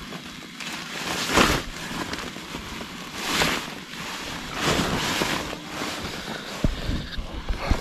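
Wind buffeting the microphone in three rushing gusts, followed by a few low thumps near the end.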